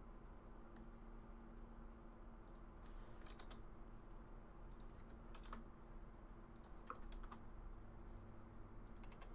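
Faint, scattered clicks and taps of a computer keyboard and mouse, irregular and a few seconds apart, over a low steady hum.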